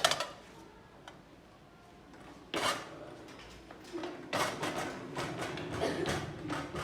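A sharp click, then clattering and scraping of objects being handled, with a short burst of rustling about two and a half seconds in and a run of knocks and scrapes near the end.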